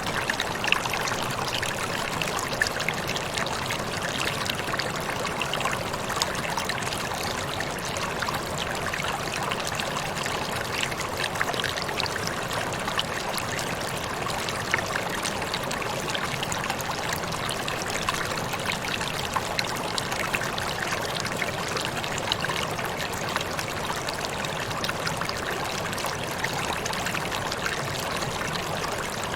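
Waterfall: falling water splashing steadily, a constant rush dotted with many small splashes.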